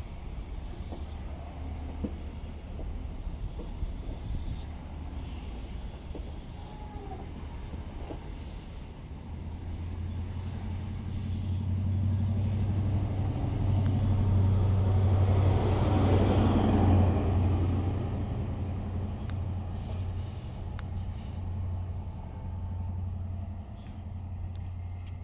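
CrossCountry High Speed Train departing: Mark 3 coaches run past on the rails, and the diesel hum of the rear Class 43 power car's MTU engine swells past a little after halfway through. The train then fades as it draws away.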